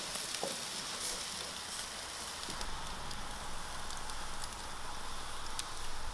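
Seekh kebabs on skewers sizzling over a charcoal grill: a steady hiss with scattered crackles and pops from the coals.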